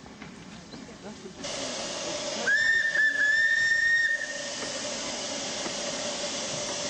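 Broad gauge Firefly replica steam locomotive: steam starts hissing about a second and a half in. Then comes one steam whistle blast of under two seconds, a steady high note that rises slightly as it opens, loudest over the hiss. The hiss goes on after the whistle stops.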